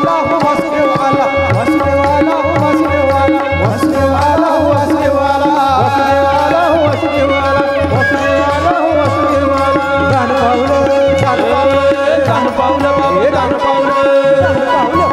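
Instrumental break in a Marathi devotional song: tabla keeps a steady rhythm under a held harmonium chord, while keyboard and violin play a wavering, ornamented melody.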